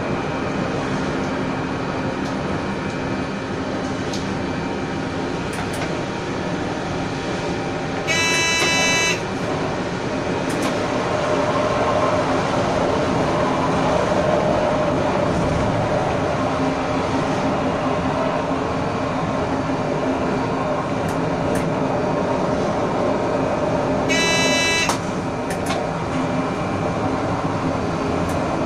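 Train running, heard from the driver's cab: a steady rumble and rolling noise of wheels on rail. A train horn sounds twice, about a second each time, once about a third of the way in and again about two thirds of the way in.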